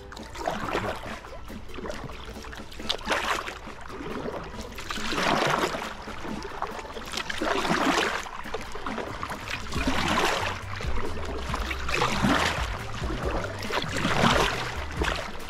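Kayak paddle strokes: the blades dip and pull through the water with splashing and dripping, swelling about once every two to two and a half seconds.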